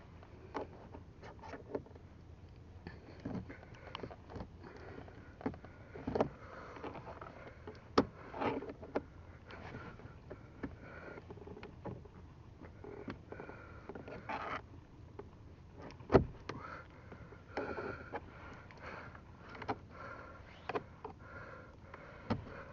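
Knife tip scraping and clicking against plastic while prying at the broken mirror adjustment knob in a Volkswagen Jetta's door, in small irregular taps and scrapes, with one sharper click about two-thirds of the way through.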